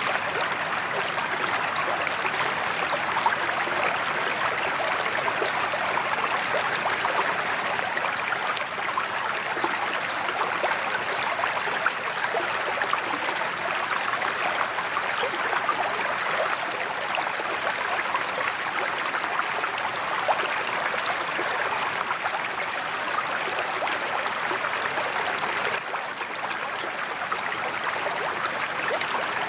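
Steady splashing of a sheet-waterfall spillway pouring into a koi pond.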